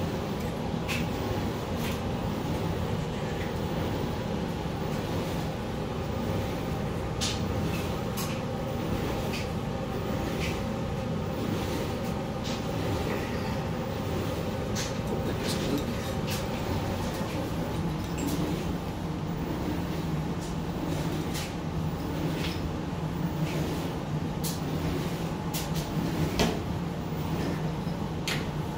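Scattered light clicks and knocks from a faucet's braided sprayer hose, its metal fittings and a plastic utility sink being handled, over a steady low hum.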